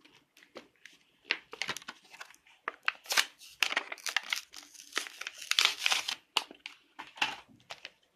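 Stiff plastic blister of a Hot Wheels toy-car pack being forced open by hand, crinkling and crackling in irregular bursts, loudest about three seconds in and again near six seconds.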